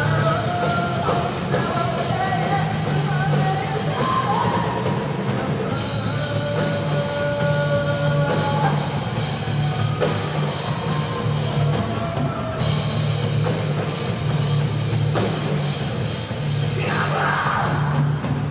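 Live heavy rock band playing: electric guitars through amplifiers and a drum kit driving a steady beat, with a sung and shouted lead vocal over it.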